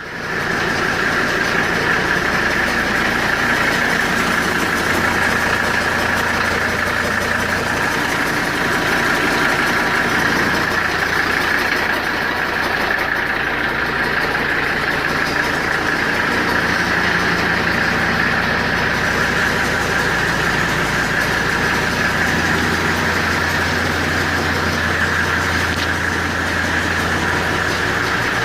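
Mercedes-Benz W123 engine idling steadily, with a constant whirring noise that the owner puts down to a bad fan clutch, not engine knock.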